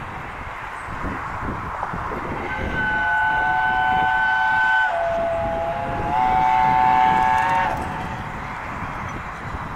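Steam locomotive 60163 Tornado sounding its whistle, a chord of several notes held for about five seconds from about two and a half seconds in; the pitch sags briefly about halfway and comes back up before it stops. Beneath it the locomotive's exhaust beats and running gear rumble as the train approaches.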